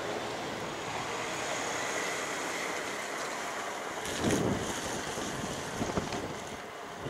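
Wind buffeting the microphone over the steady wash of the sea, with a brief louder rustle or thump about four seconds in and a smaller one about two seconds later.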